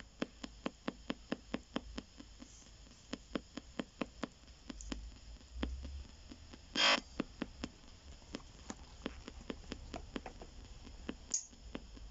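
P-SB7 spirit box sweeping the AM band, ticking steadily about four times a second as it jumps from station to station over faint static. A short burst of radio static comes about seven seconds in.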